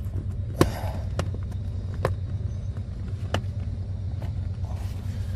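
Plastic seat trim and its retaining clips being worked and pressed into place by hand: a few sharp plastic clicks and knocks, the loudest about half a second in, over a steady low hum.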